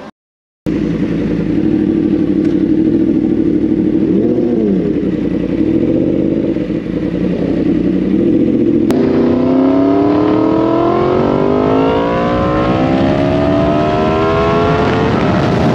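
Yamaha MT-10 motorcycle engine running at a steady pitch on the move, with a brief dip and recovery of the revs about four seconds in; from about nine seconds in it revs up in one long rising pull under hard acceleration, levelling off near the end.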